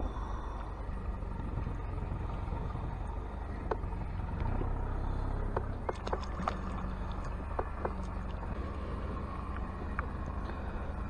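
A steady low rumble, with a cluster of sharp clicks and taps around the middle as a freshly landed mirror carp is handled out of the landing net.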